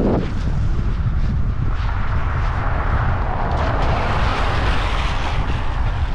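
Wind buffeting the microphone with a steady low rumble, while a wave washes up the beach, its hiss swelling about two seconds in and fading near the end.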